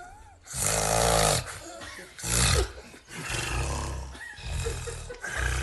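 A person snoring very loudly: harsh, rasping snores come one after another about every one to two seconds, the third long and drawn out.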